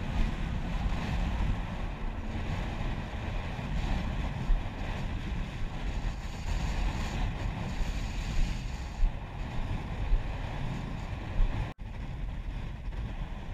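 Wind buffeting an action camera's microphone: a steady low rumble with uneven gusts. It drops out for an instant near the end.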